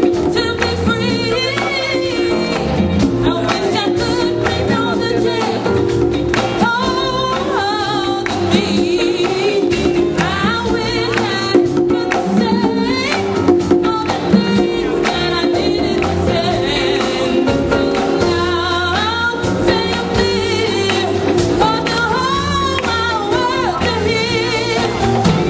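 Live band music: a lead singer's voice wavering over a full band with drum kit, congas and guitar.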